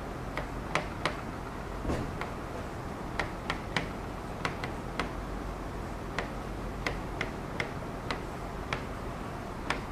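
A pen tapping and stroking on a writing board as words are written by hand: irregular sharp ticks, about two or three a second, over a low steady hum.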